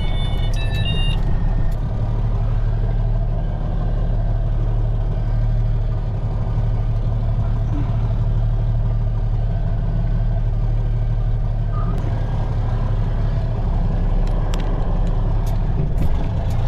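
Diesel engine of a 1985 Ford CL9000 cab-over semi running steadily under light load as the truck moves slowly, heard from inside the cab.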